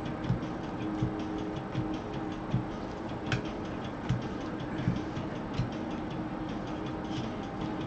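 Baseball trading cards being flipped off a stack one by one with gloved hands, a short flick about every three-quarters of a second over a faint steady hum.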